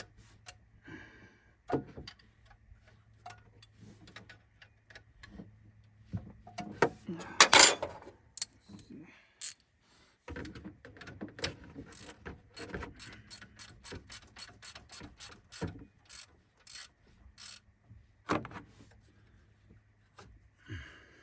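Hand ratchet wrench clicking in short runs as bolts are tightened down, with a louder metallic clank about seven seconds in.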